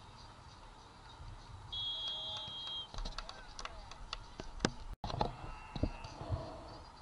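A referee's whistle blown once, a steady high-pitched tone held for about a second. Several sharp clicks and knocks follow.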